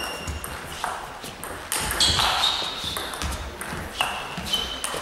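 Table tennis rally: the celluloid ball clicks sharply off the players' bats and the table in a quick, uneven series of pings, some with a brief high ring.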